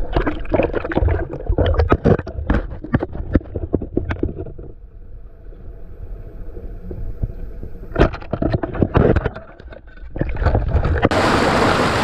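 Muffled underwater sound from a camera submerged in a stream: rapid knocks and clatter as a diver moves about among the rocks. It goes quieter for a few seconds in the middle, then comes a sharp knock at about eight seconds with more clatter. Near the end the camera breaks the surface into the rushing water of the stream.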